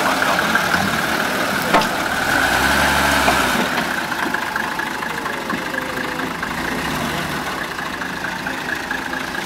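A GAZ-69 4x4's engine running at low revs as it crawls along, with a single sharp knock about two seconds in and a brief deeper rumble just after.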